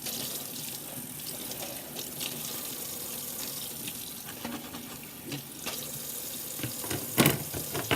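Kitchen tap running into a sink while things are rinsed under it, with scattered small knocks and one loud knock about seven seconds in.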